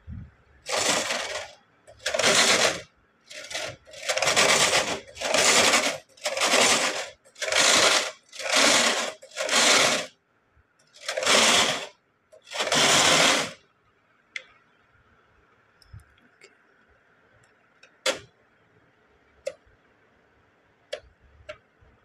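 A Brother punch-card knitting machine's carriage is run back and forth across the needle bed in about eleven quick passes, each a rasping slide of under a second. The carriage is being run to advance the pattern card row by row up to row 26. Near the end come a few scattered sharp clicks.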